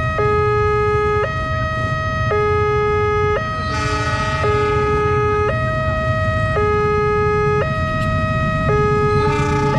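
Railway level-crossing warning alarm sounding its two-tone electronic signal, alternating steadily between a lower and a higher note about once a second. It warns that a train is approaching the closed crossing.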